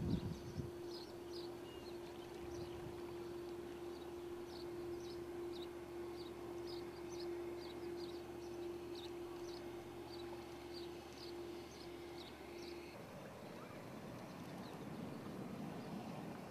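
Steady machinery hum with one held mid-pitched tone from an Anzac-class frigate passing close by, which stops about 13 seconds in. Over it, small birds give short high chirps about twice a second.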